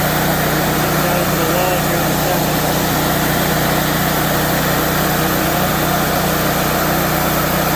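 Wood-Mizer bandsaw mill running steadily under power, its band blade sawing through a cant.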